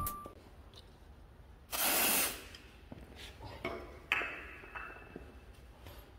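A short burst of pressurised spray hissing for under a second, followed by a few faint clicks and a short metallic clink of hand tools.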